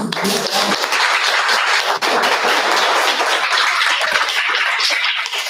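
A small audience applauding, a dense steady patter of many hands clapping.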